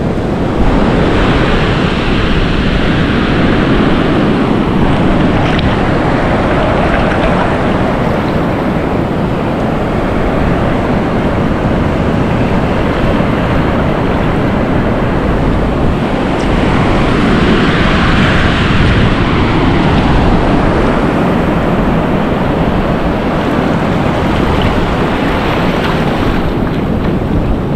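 Shallow sea surf washing in and out over sand, swelling louder near the start and again just past the middle, with wind rumbling on the microphone.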